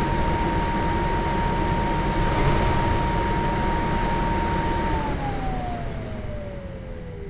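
Volvo 240 DL engine running with the hood open, under a steady whine from its cooling fan. About five seconds in, the engine is shut off: the engine noise dies away and the fan's whine falls steadily in pitch as the fan slows down.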